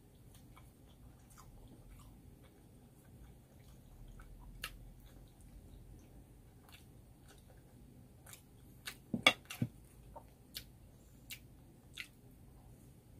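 Close-up chewing and biting into a Korean cheese hotdog, with soft mouth clicks scattered throughout. A brief clatter about nine seconds in, as a bowl is set down on the table, is the loudest moment.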